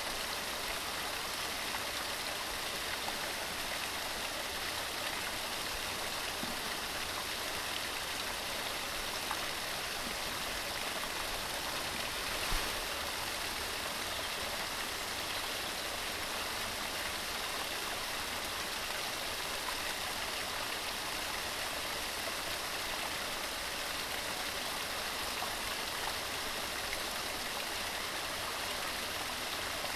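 A mountain stream running steadily over rocks, a continuous even rush of water, with one brief faint knock about halfway through.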